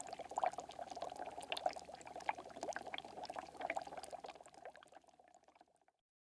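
Water bubbling in small, dense bursts of pops, fading out over the last second or so and stopping about six seconds in.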